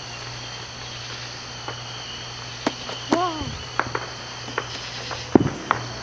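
Crickets and other night insects chirping steadily, with a series of sharp fireworks pops from about two seconds in, the loudest near the end.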